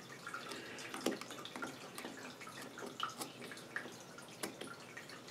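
Faint, scattered metallic clicks and ticks, about one a second, from circlip pliers and small parts being worked loose on the second-speed clutch pack of a stripped-down Suzuki FZ50 engine.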